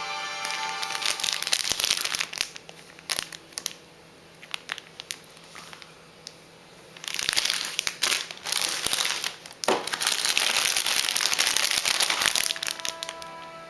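Clear plastic bags crinkling as bagged plastic model-kit runners are lifted and handled, with a few sharp clicks. There is a loud stretch about a second in, a quieter pause, then a longer loud stretch from about 7 to 12 seconds. Background music comes back near the end.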